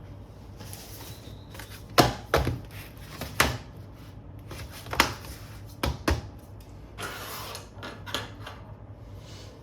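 A handful of sharp knocks and clicks, about six of them, as objects are handled and set down on a hard surface, followed by a short stretch of rustling or scraping.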